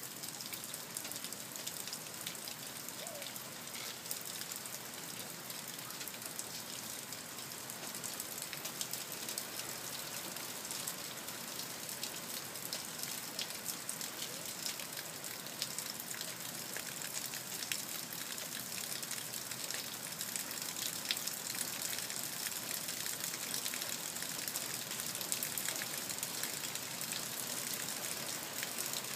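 Heavy rain falling steadily, a dense hiss with many small drop taps, growing slightly louder toward the end.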